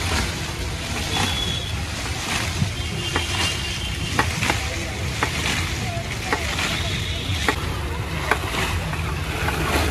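A knife knocking on a table as fresh fruit is cut, in short sharp clicks about once or twice a second, over a steady low rumble of street noise.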